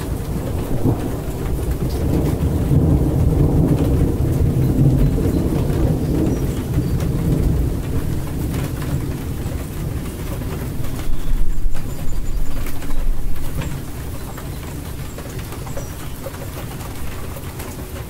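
Steady rain with rolling thunder: a low rumble swells over the first several seconds and dies away, then a louder roll of thunder comes about eleven seconds in and fades after a couple of seconds.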